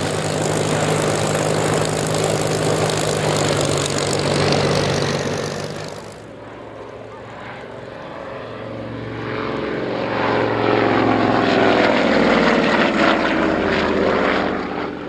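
A vintage biplane's piston engine running steadily close by with its propeller turning. About six seconds in, the sound cuts to a twin-engined propeller aircraft flying past overhead, growing louder and then fading near the end.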